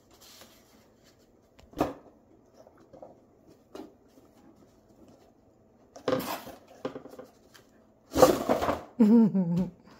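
A cat moving about in cardboard boxes: a light knock, then scuffing and rustling of cardboard and tissue paper, loudest about eight seconds in as it climbs from one box into another.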